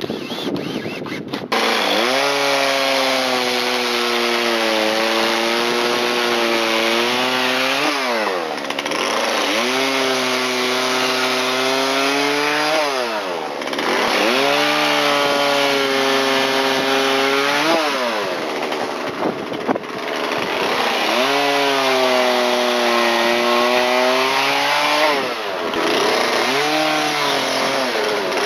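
Husqvarna two-stroke chainsaw at high revs, cutting into a block of white cedar. Its engine note sags in the cut, and four times the throttle is let off and revved back up.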